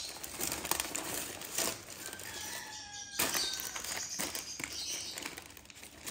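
Baking paper rustling and crinkling as it is peeled off a baked sponge cake sheet, with uneven sharp crackles.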